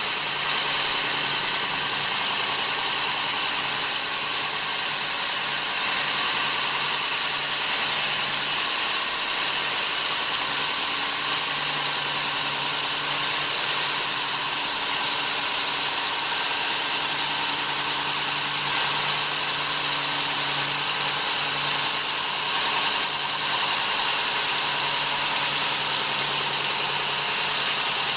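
Cuttronix CM-10S3 core drill, a 3.0 kW motor on 230 V single phase, running steadily under load as its 200 mm core bit cuts down into the material. It makes a steady whine of several fixed tones over a grinding hiss, with a slight waver in the low hum.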